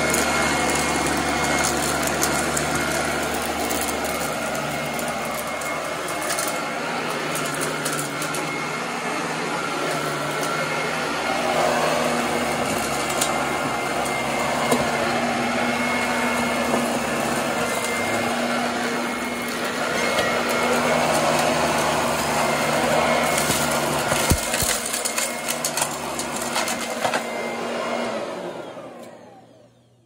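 Royal Commercial 18-inch upright vacuum cleaner running steadily on carpet, with scattered clicks and crackles as debris is picked up. Near the end its motor winds down to a stop, falling in pitch.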